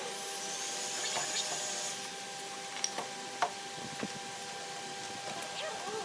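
A hiss lasting about two seconds, then a few light knocks as wood and steel bar clamps are handled, over a faint steady hum.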